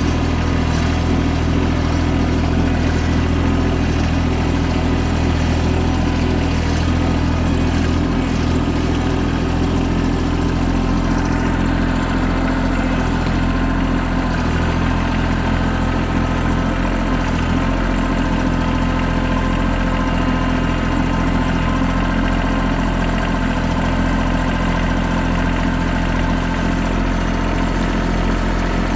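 An engine running at a steady speed, with no revving or change in pitch.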